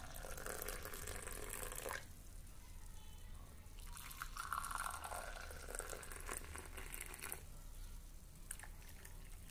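Hot milky masala tea poured in a thin stream into small glass tumblers, one glass for about the first two seconds and a second glass from about four seconds in.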